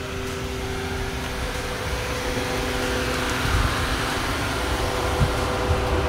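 Steady engine hum of a GMC Terrain SUV idling, with a low rumble underneath and a faint knock about five seconds in.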